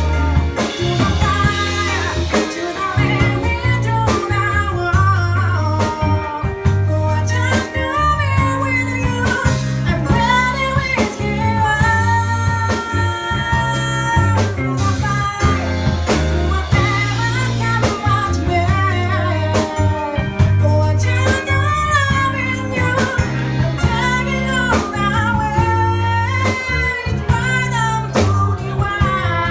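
Live band playing blues-style music: a singer with guitar, bass and drums.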